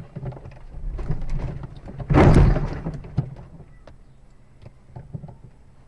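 Car collision heard from inside the dashcam car: a single loud bang about two seconds in as another vehicle strikes it, followed by scattered small clicks and knocks.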